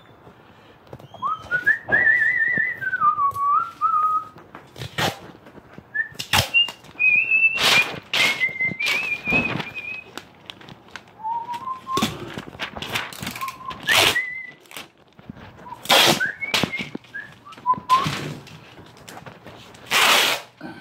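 A person whistling a tune in short, wavering phrases, broken up by several short, loud rasping noises and knocks from the work.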